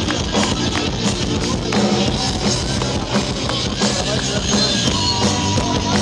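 A live rock band playing electric guitars and a drum kit, a dense, steady wall of sound.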